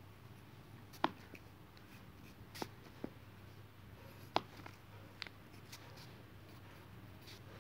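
Pencil writing on notebook paper, faint, with a handful of sharp clicks as the point strikes the page, over a low steady hum.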